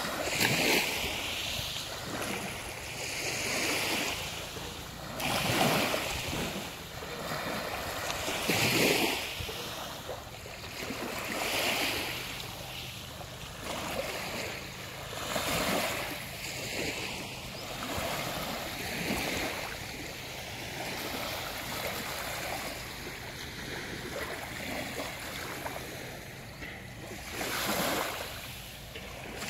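Sea waves breaking and washing up on a beach, a swell of surf every few seconds.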